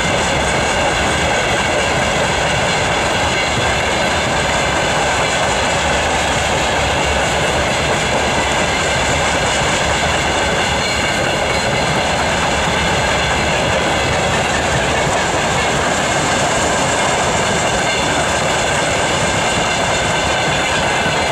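Freight train's open gondola wagons rolling past at speed: a loud, steady rolling noise of steel wheels on the rails with a high ringing tone over it.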